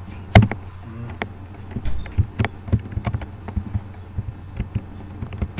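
Computer keyboard typing: irregular key clicks, one louder tap near the start, over a steady low electrical hum.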